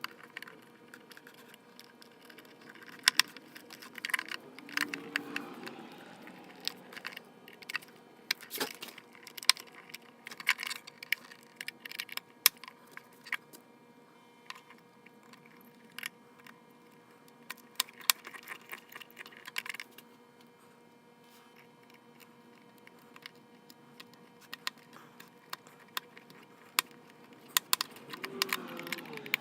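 Irregular small clicks and taps of a screwdriver and small metal screws being handled and driven into a mandolin's wooden body, busiest in the first two-thirds and again near the end.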